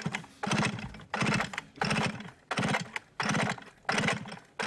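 Old 1950s Swedish two-stroke chainsaw being pull-started, about two quick pulls a second, each one turning the engine over with a short clattering whirr without it catching. It is a hard start, which the owner puts down to fuel not getting through because something is blocked.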